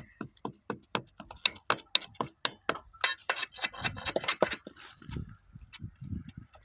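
A rapid series of sharp taps or knocks, about four a second, bunching together a little past halfway, then giving way to a few duller thuds.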